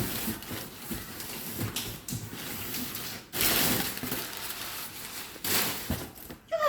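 Packaging being handled and unwrapped by hand: crinkling, rustling wrap, with two louder stretches of rustle past the middle and a few light knocks.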